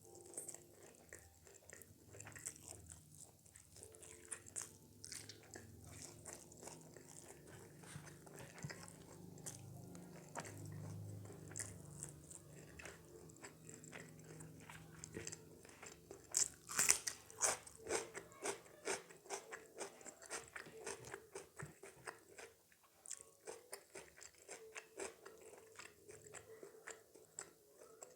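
Close-miked eating: a person bites and chews crunchy food, with many small wet crunches throughout and a cluster of louder crunchy bites about two-thirds of the way in.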